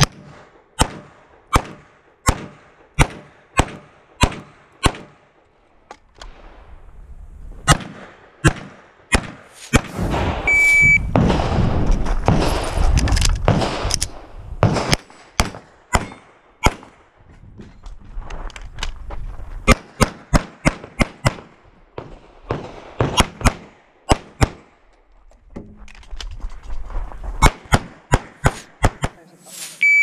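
Rapid pistol fire from a CZ 75 TS Czechmate race pistol: several strings of quick shots, about one or two a second, with pauses between strings. About ten seconds in, and again at the very end, a short electronic shot-timer beep starts a new string of fire.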